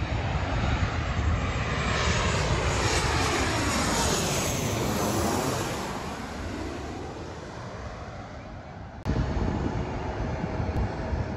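Twin-engine jet airliner on landing approach passing low overhead: the engine noise swells loud, sweeps with a shifting, flanging quality as the plane goes over, then falls away. About nine seconds in the sound cuts abruptly to a steady low rumble.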